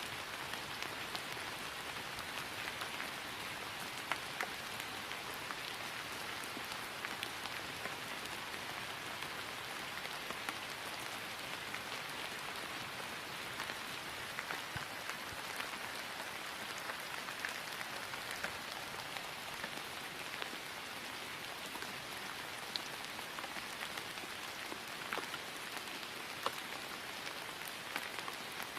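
Steady rain falling on grass: an even hiss with many individual drops pattering through it.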